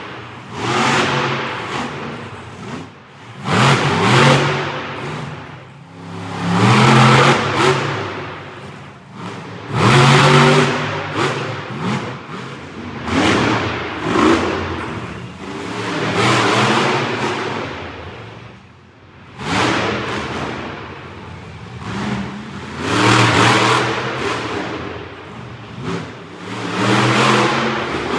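Monster truck engine revving hard in repeated surges, rising and falling about every three seconds, nine times in all.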